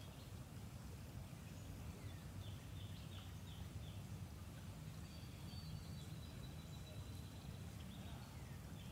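Quiet woodland ambience: a steady low background rumble with songbirds, a quick run of short high chirps a few seconds in, a thin high whistle held for about two seconds in the middle, and more chirps near the end.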